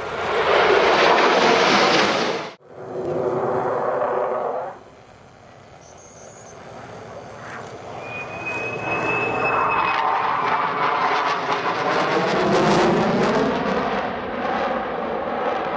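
Aircraft engine noise in short edited segments: a loud burst that cuts off suddenly, a second shorter one, then an aircraft's engine sound building up over several seconds into a loud steady noise with a sweeping pitch, as of a plane passing close by.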